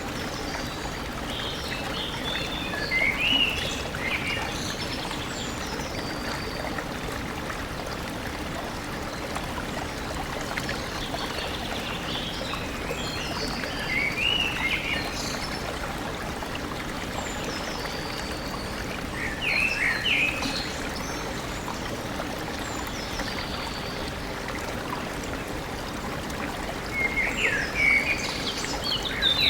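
Stream flowing steadily, with birds singing over it in short bursts of quick chirps and trills, four times.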